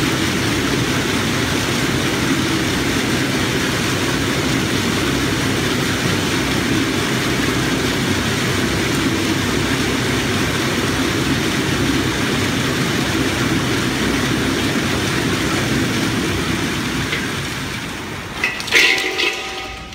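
In-shell peanuts rattling in a turning stainless-steel drum roaster and pouring out of its mouth into a plastic bag: a steady, dense clatter that fades near the end, with a few sharper knocks.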